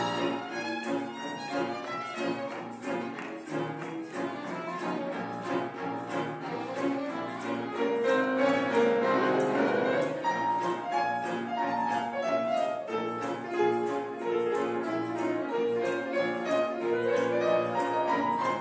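A piano quintet of two violins, viola, cello and piano plays an instrumental passage. Bowed strings carry the melody over piano accompaniment.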